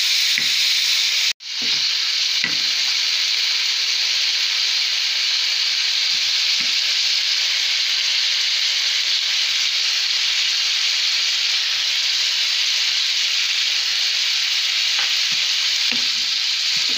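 Diced chicken sizzling steadily in hot vegetable oil in a non-stick frying pan, with a few light knocks from a wooden spatula stirring it. The sizzle cuts out for a split second about a second in.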